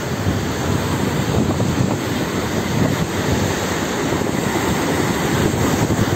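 Wind buffeting the microphone over the rush of sea surf at the water's edge: a loud, steady, low rumbling roar.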